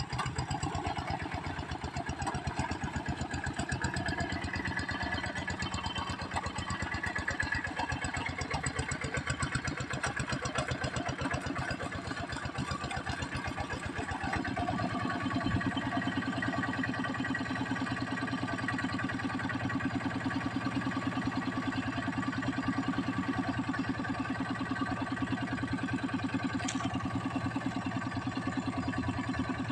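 Kubota diesel tractor engine running steadily under work, with an even firing pulse. About halfway through its sound gets deeper and fuller.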